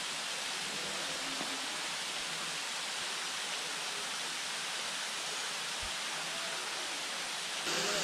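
A waterfall's steady rushing hiss of falling water, a little louder just before the end.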